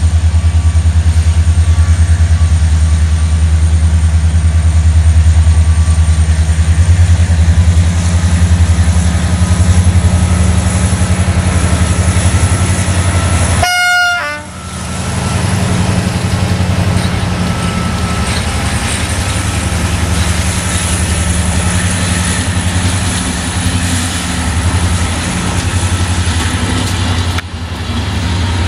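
A GM-engined Romanian class 65 diesel-electric locomotive running as it hauls a passenger train past at close range. Its engine gives a loud, deep, steady drone, briefly broken about halfway through.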